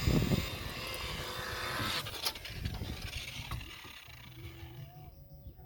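Electric buffer running on boat gelcoat while working in rubbing compound, then slowing and stopping about two seconds in.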